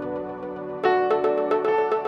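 Background music: held keyboard chords over a quick, steady ticking beat. About a second in, the music grows louder as a new, brighter chord comes in.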